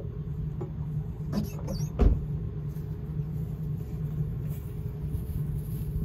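Engine running at a steady idle with a low, even hum, and a sharp knock at the start followed by two more clunks about one and a half and two seconds in.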